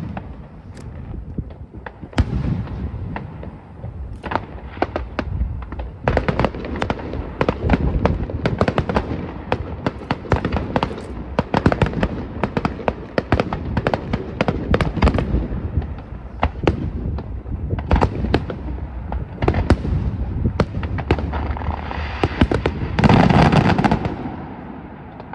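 Aerial fireworks bursting in quick succession: many sharp bangs and crackles, several a second, over a continuous low rumble. A heavier boom comes near the end, then the bursts thin out.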